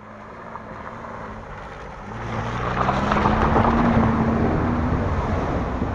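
Daewoo Tico's small three-cylinder engine revving hard under load as the car works up a steep dirt climb. It grows louder and rises a little in pitch to a peak around the middle, then eases off.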